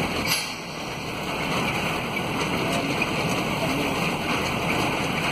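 Steady engine and road noise inside a moving vehicle, with air rushing past, and a brief clatter just after the start.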